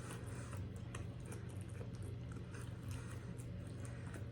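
Faint chewing with small, irregular mouth clicks, over a steady low hum.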